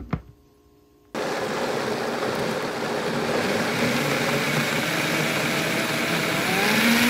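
A single knock, then about a second in a countertop blender starts and runs steadily, puréeing boiled tomatillos and chiles in their cooking water into salsa verde; near the end a tone in its sound rises in pitch.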